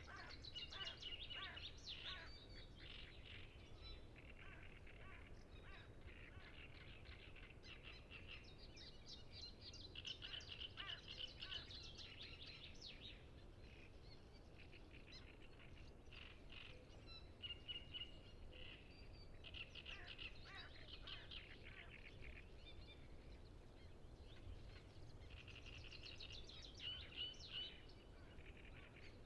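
Great reed warblers singing, faint: rapid, repeated chattering phrases in bursts of a few seconds with short pauses between, over a steady low rumble.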